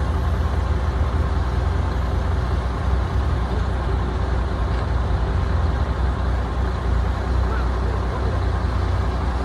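Heavy diesel engine of an excavator on a dredging job, running steadily with a deep, even drone.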